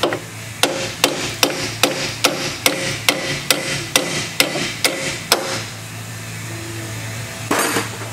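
A hammer striking metal about a dozen times in a steady rhythm, roughly two and a half blows a second, each blow ringing briefly: tapping out the lower strut-to-spindle mounting bolts on the front suspension. A short noisy clatter follows near the end.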